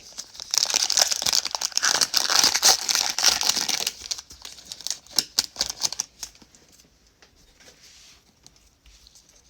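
Foil trading-card pack wrapper crinkling and tearing as it is ripped open, dense for about three and a half seconds, then a few scattered crackles and clicks that die away by about six seconds in.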